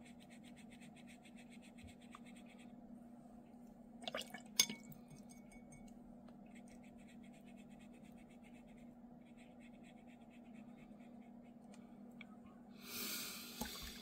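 Faint scratching of a watercolour brush stroking paint onto watercolour paper, with a couple of light knocks about four seconds in. Near the end comes a brief watery swish as the brush is rinsed in a water jar.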